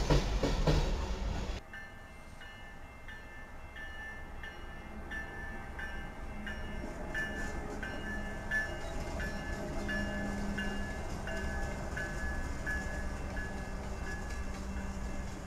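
Freight train rolling past with steady wheel rumble while a grade-crossing bell rings about twice a second. The first second and a half is a louder passing freight train, which cuts off abruptly.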